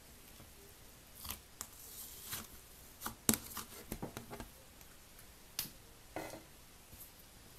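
Thick cream-coloured slime being poked, squeezed and pulled out of a plastic tub by fingers, giving scattered soft squishes and small crackling pops, busiest about halfway through.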